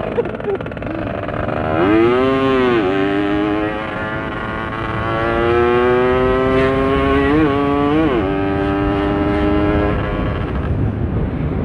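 Motorcycle engine running under way over wind rush. Its revs rise and fall sharply about two seconds in, then climb steadily for several seconds. Two quick dips near the eight-second mark are followed by a steadier, lower note.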